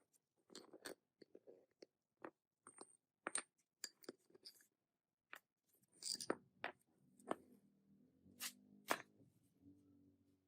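Faint, scattered clicks, taps and short scrapes of small parts being handled, with a faint low steady hum coming in about six seconds in.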